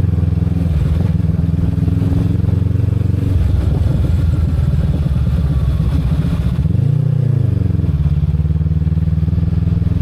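Motorcycle engine running while riding, with one quick rise and fall in engine pitch about seven seconds in.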